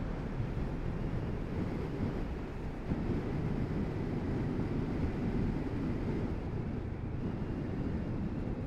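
Wind buffeting the microphone over the low, steady running of a Kawasaki Z650RS's parallel-twin engine, with the motorcycle cruising at road speed.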